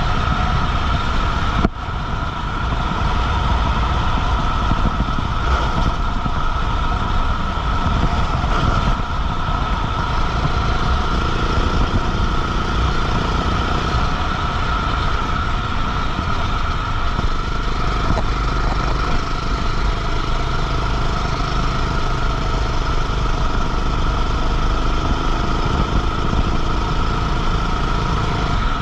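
Go-kart engine running at a steady, even speed, heard onboard with rumble and wind noise, with a brief dropout about two seconds in.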